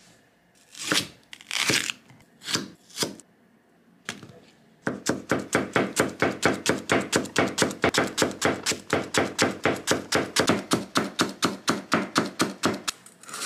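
Kitchen knife finely slicing myoga (Japanese ginger buds) on a plastic cutting board. A few separate knocks come in the first three seconds; from about five seconds in there is a steady run of quick chops at about five strokes a second, stopping near the end.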